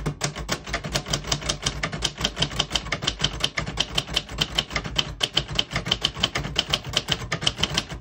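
A 1967 Royal Safari manual portable typewriter typed on fast and steadily, its keys and typebars striking about seven times a second.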